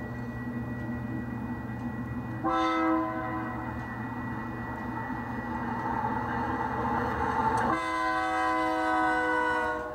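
Diesel locomotive horn sound from an HO-scale model train, over a steady low diesel engine rumble. The multi-note horn chord comes in about two and a half seconds in, sounds on more quietly, then blows a long loud blast from about eight seconds in that cuts off just before the end.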